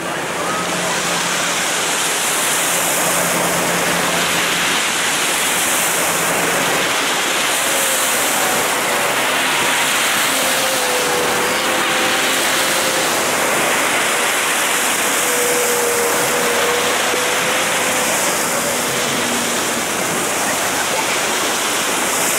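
Outboard engine of an RNLI D-class inshore lifeboat running at speed, a faint wavering whine over a steady, loud rushing noise of spray and moving air.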